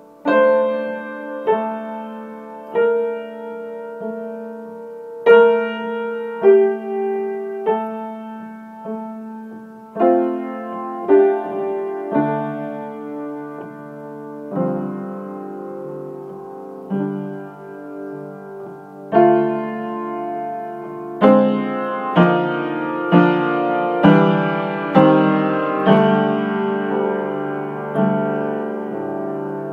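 Upright piano played solo: a slow, hymn-like piece in held chords, struck about every one to two seconds and left to ring out, growing louder and coming about once a second near the end.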